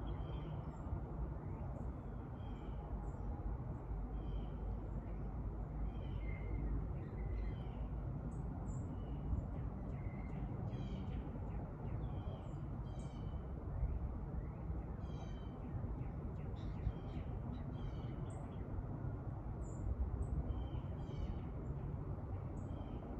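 Wild birds calling outdoors: many short chirps and a few quick trilled runs of notes, scattered throughout, over a steady low background rumble.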